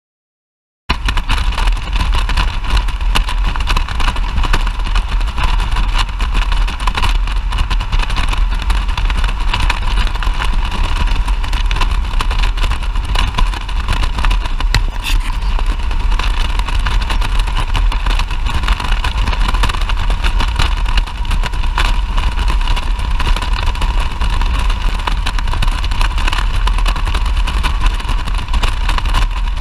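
Steady riding noise of a motorcycle at highway speed heard through a helmet-mounted GoPro: heavy wind rush buffeting the microphone, mixed with engine and road noise. It cuts in abruptly about a second in, after silence.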